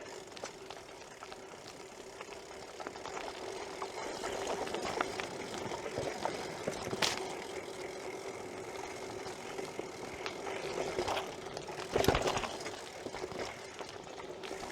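BMX bike riding over a rough trail: steady tyre and drivetrain noise with a faint hum, broken by sharp knocks from bumps, the loudest about twelve seconds in and another about seven seconds in.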